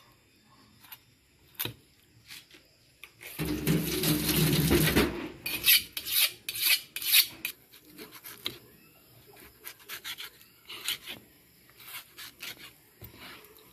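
Kitchen knife scraping and cutting through raw fish flesh on a plastic cutting board. A long, loud rasping scrape comes about three seconds in, followed by a run of short strokes and taps.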